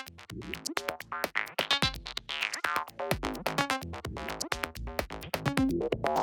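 Electronic music: short synthesizer notes, some gliding in pitch, over a sparse beat of sharp percussive clicks.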